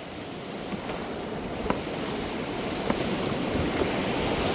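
Whitewater river rushing, growing steadily louder, with a few sharp knocks.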